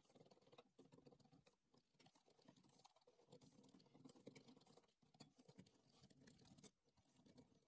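Faint, irregular small clicks and scraping of a hand hex screwdriver turning a bolt into a CNC end plate on aluminium extrusion, metal on metal.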